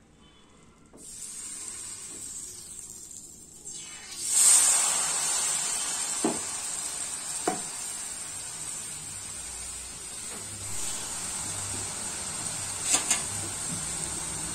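Batter-coated rose-cookie mould going into hot oil: a sudden loud sizzle about four seconds in, settling into steady deep-frying hiss. A quieter hiss runs before it, and a few light knocks come partway through.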